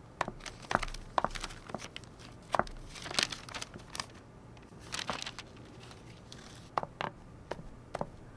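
High-heeled footsteps clicking on a hard tiled floor, with paper rustling twice in the middle as the pages of a file are leafed through. Near the end the heel clicks settle into a steady walk of about two steps a second.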